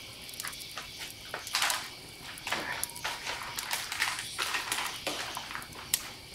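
Irregular crinkling, rustling and crackling of MRE foil pouches and packaging as they are handled and torn open, with scattered sharp clicks.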